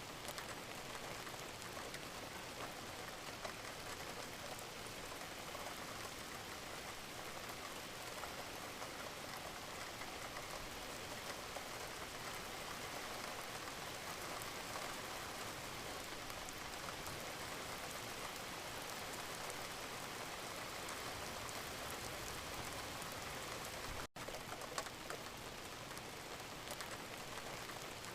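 Steady rain falling, an even hiss with fine patter of individual drops. It cuts out for an instant near the end, then carries on unchanged.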